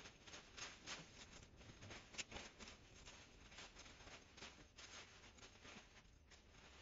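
Faint rustling and crackling of cut hedge branches and leaves as they are dragged and pulled out from under the hedge, in quick irregular scrapes with a sharper snap about two seconds in.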